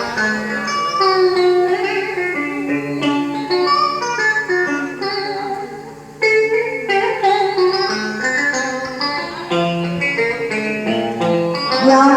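Instrumental interlude of Vietnamese đờn ca tài tử music: plucked string instruments play a melodic line with bent notes, easing off briefly about halfway through.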